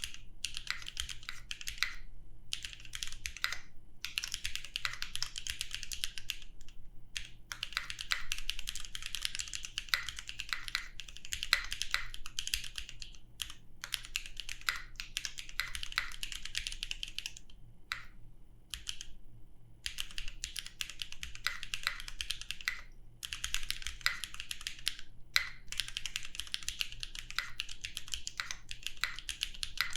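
Typing on a mechanical keyboard with lubed linear switches, a carbon fibre full plate and no dampening foam: fast runs of keystroke clacks broken by short pauses.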